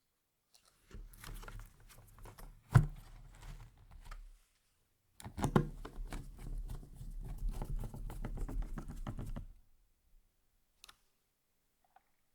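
Typing on a Rexus DAXA M61 mechanical keyboard: two fast runs of keystrokes with a short pause between them, each stroke a click with a low thud, one stroke louder about three seconds in, and a single keystroke near the end.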